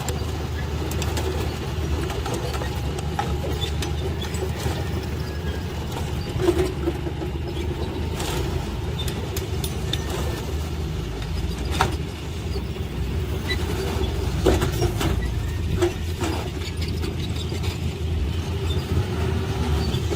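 Heavy diesel earthmoving machinery running steadily at a fill site, with scattered short metallic knocks and clanks.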